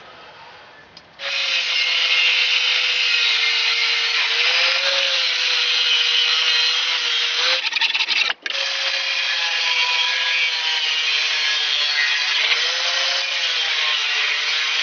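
Angle grinder cutting a sheet-metal plate clamped in a vise, starting about a second in: a steady grinding whine whose pitch shifts slightly as the load changes. It breaks off for a split second just past halfway, then carries on.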